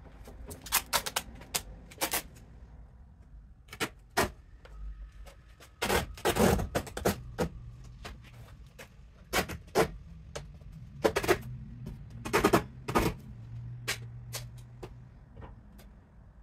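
Cardboard box being handled and pressed into place: irregular sharp taps, knocks and scuffs of cardboard in small clusters, the loudest and longest about six and twelve seconds in.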